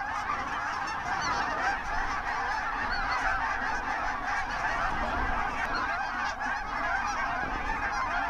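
A large flock of snow geese calling overhead: a dense, steady din of many overlapping goose calls.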